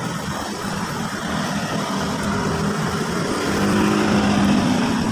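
A motor vehicle engine running, a steady low drone that grows louder about three and a half seconds in.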